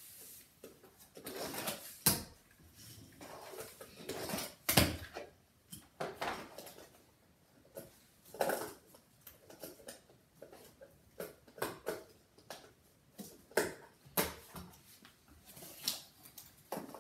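Irregular knocks, clacks and scuffs of a fingerboard and cardboard ramps being handled, lifted and set down on a felt-covered table, with a handful of sharper knocks a few seconds apart.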